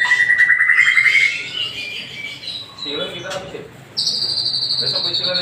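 White-rumped shama (murai batu) singing: a buzzy trill held at one pitch for about a second, then softer, varied short whistled notes. About four seconds in, a loud, rapid, higher-pitched trill starts.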